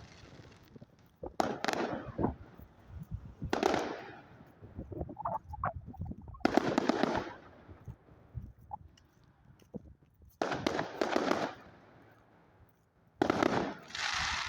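Fireworks going off in a display: five bangs, each with about a second of rumble and crackle, a few seconds apart.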